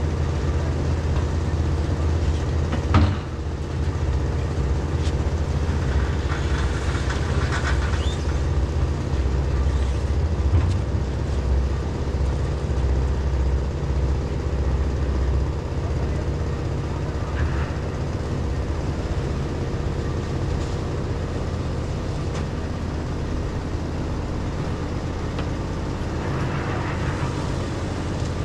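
Construction machinery engine running steadily at a low drone, with one loud clank about three seconds in.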